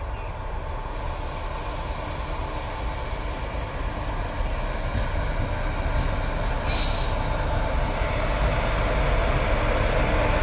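WAP-4 electric locomotive hauling a passenger train out of a station, its running noise growing steadily louder as it approaches, with a brief high-pitched hiss about seven seconds in.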